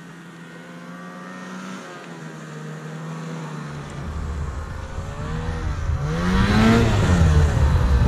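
Ski-Doo snowmobile approaching along the trail, its engine growing steadily louder as it nears. About six to seven seconds in the engine note rises and then drops as the sled comes up close.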